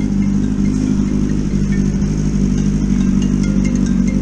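Engine running at a steady idle, an even low hum, with a few light ticks near the end.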